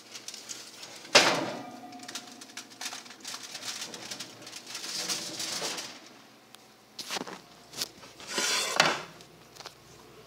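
Oven door shutting with a loud metal clank and a brief ringing tail about a second in, followed by scattered light clicks and rustling.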